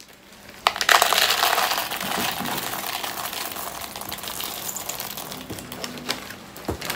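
A chocolate bar wrapper crinkling and tearing as it is pulled open, a loud dense crackle that starts under a second in and thins out towards the end, with a few sharp knife clicks against a cutting board.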